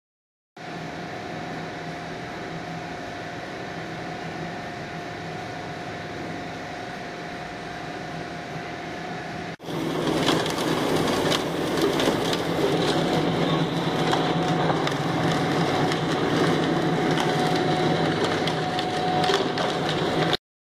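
Rock-crushing and ore-processing machinery running. For about nine seconds a steady machine drone carries a held whine; then, after a sudden change, a louder crushing and rattling of rock takes over, full of sharp clacks.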